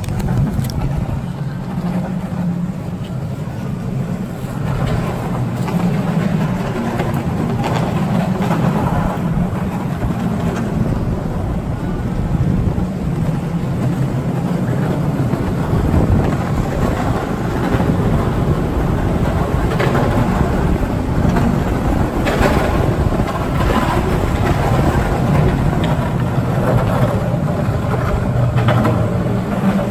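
Skateboard wheels rolling over a concrete parking-garage floor: a steady low rumble, with a few sharp clicks in the second half.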